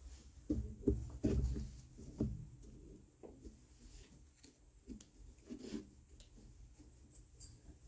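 Quiet room with a few soft, low thumps and light handling rustles, most of them in the first two and a half seconds, then fainter ones.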